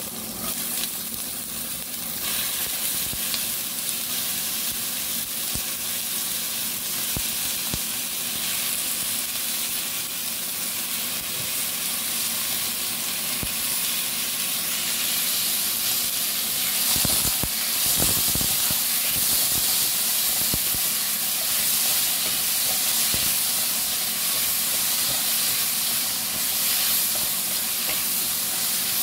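Sliced onion and tomato sizzling in hot oil in a nonstick wok, a steady frying hiss. A spatula stirring them knocks against the pan a few times about halfway through.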